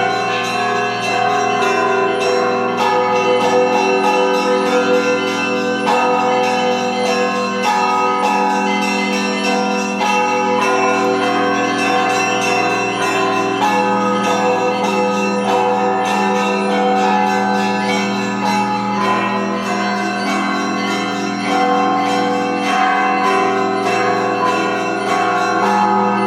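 Russian Orthodox church bells ringing a continuous peal (zvon), many bells of different pitches struck in overlapping patterns over a steady low hum.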